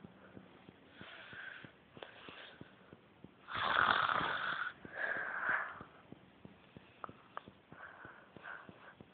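A woman snoring in her sleep: one loud snore about three and a half seconds in, followed by a noisy breath out, with fainter snoring breaths before and after.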